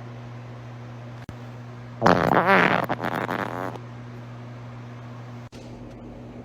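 A person farting once, about two seconds in: a loud, pitched fart with a wavering pitch, lasting nearly two seconds. A steady low hum runs underneath.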